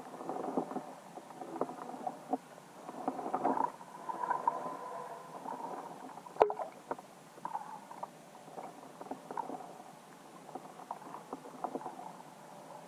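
Underwater ambience heard through a submerged camera over a rocky lake bottom: scattered knocks, crackles and gurgles, with one sharp click about six and a half seconds in.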